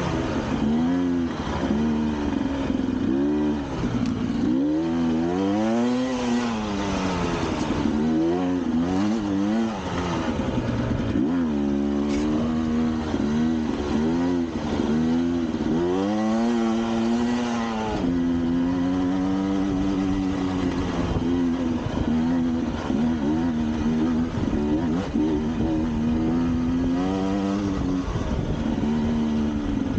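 Motor vehicle engine under load, its revs rising and falling again and again with throttle changes, with some rattling.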